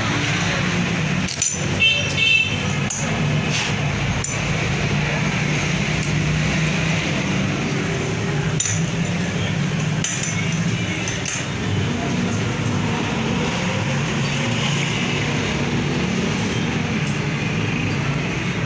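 Sharp metallic clinks and clicks of steel tools and wrench against a lathe's four-way tool post and its bolts, a quick cluster about two seconds in and single clinks every few seconds after, over a steady machine hum.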